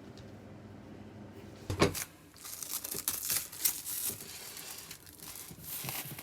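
Small dog having a reverse sneeze: one loud rasping intake about two seconds in, then a quick irregular run of rasping, snorting breaths for about four seconds.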